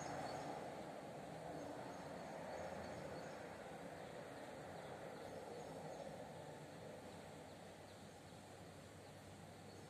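Faint steady background noise of the room, slowly fading, with a few faint high chirps in the first seconds.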